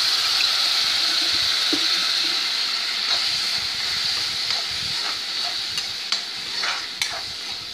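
Masala paste sizzling and bubbling in hot oil in a kadai just after hot water is poured in, the hiss slowly dying down. In the second half a steel spoon stirs and scrapes against the pan with short clinks.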